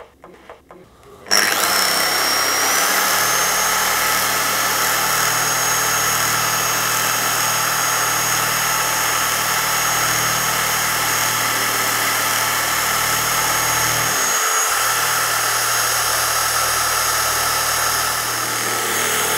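Dual-action polisher with a heavy-cutting microfiber pad, starting about a second in with a whine that rises as it spins up. It then runs steadily while cutting scratches out of car paint with compound, with a brief drop in its low hum near the middle.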